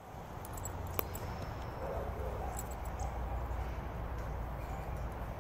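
Outdoor background sound: a steady low rumble, with one sharp click about a second in and a few faint high chirps around the middle.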